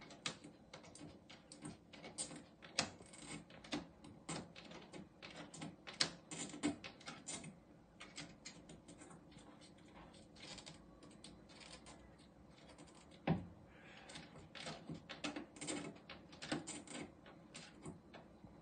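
Faint, irregular clicks and taps, several a second, with one louder knock about two-thirds of the way through, over a low steady hum.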